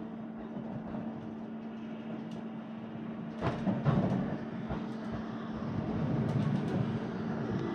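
Steady running noise of an electric train heard from inside the passenger car: a constant hum over a rumble. A couple of sharp knocks from the wheels come about three and a half and four seconds in, and the running gets a little louder after them.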